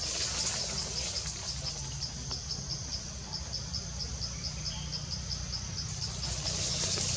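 An insect, cricket-like, chirping in a steady rhythm of about four high pulses a second, over a low steady rumble.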